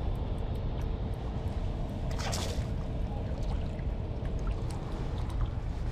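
Sea water sloshing and splashing, with one louder splash a little over two seconds in, over a steady low rumble and a faint even hum.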